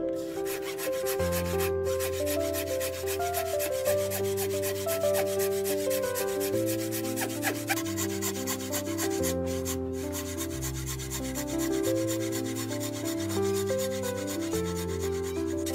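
A wooden frame saw cutting through a block of wood in quick, even back-and-forth strokes, with background music underneath.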